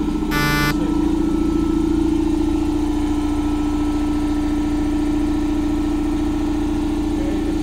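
The single-cylinder two-stroke engine of a 2003 Honda CR250R dirt bike with a custom expansion-chamber pipe, running at a steady speed on a dyno. A short buzzy beep sounds about half a second in.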